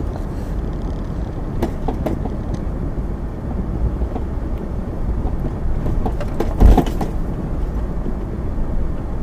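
Cabin noise of a 2002 Infiniti QX4 driving down a bumpy dirt trail: a steady low rumble of engine and tyres, with scattered knocks and rattles. A loud thump comes about two-thirds of the way through.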